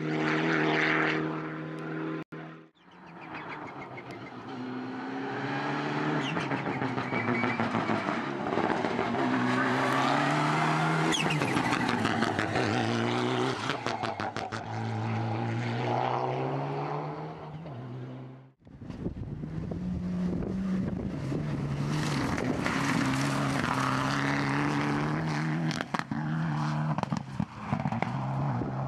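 Mitsubishi Lancer Evolution rally cars' turbocharged four-cylinder engines revving hard on stage, the pitch climbing and dropping again and again through gear changes. It is a few separate passes cut together, with abrupt breaks about two and a half seconds in and just past halfway.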